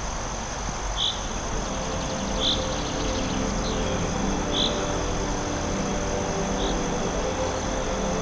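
Forest ambience: a steady high insect drone, with five short chirping calls a second or two apart over a low steady hum.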